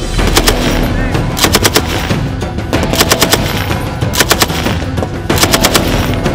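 Rifles firing in short rapid bursts: about five bursts of several shots each, roughly a second or so apart.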